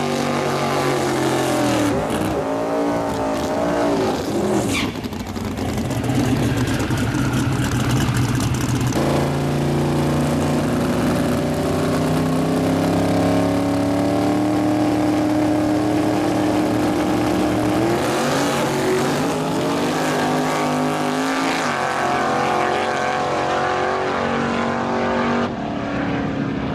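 Drag race car engines idling and revving at the starting line. Their pitch swings up and down in the first few seconds, holds steady through the middle, and rises again a little past halfway.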